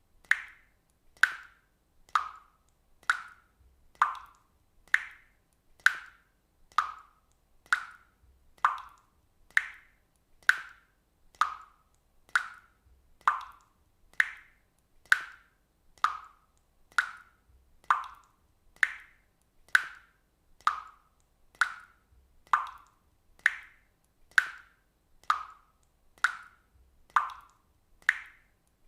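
Water drops falling one at a time into water, a steady plink roughly once a second. Each plink is short and bright and differs slightly in pitch from the last.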